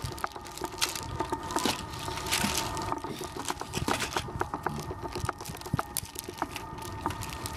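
Plastic toy train cars of an E6 Super Komachi set being handled and coupled, making a run of light, irregular clicks and knocks.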